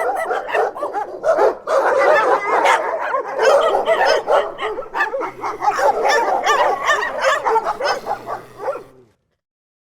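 Several dogs barking, yipping and whining over one another in a continuous, overlapping chorus that cuts off abruptly near the end.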